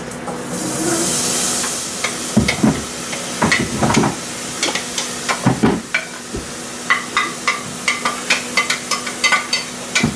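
Chopped pineapple tipped into hot sugar syrup in a pot, hissing for about a second and a half as it hits. Then a spoon stirring and scraping it in, with a run of quick clicks and knocks against the pot.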